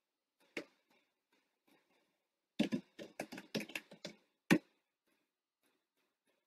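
Computer keyboard typing: a quick run of about a dozen short key clicks, from a single click about half a second in, ending with one louder click at about four and a half seconds.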